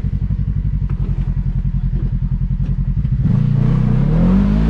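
Side-by-side UTV engine running at a low, evenly pulsing idle, then revving up about three seconds in, its pitch rising.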